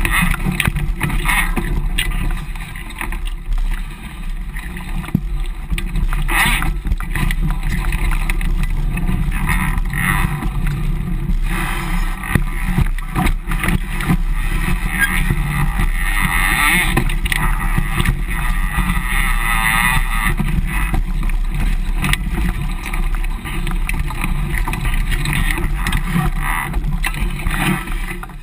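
Single-speed mountain bike ridden over a leaf-covered, rocky trail, picked up through the bike's frame: continuous rumble and rattle of the bike and its knobby tyres on leaves and rock, broken by frequent knocks from bumps.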